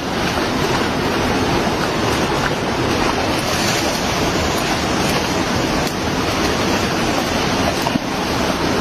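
Steady rushing noise of surf, with wind buffeting the microphone.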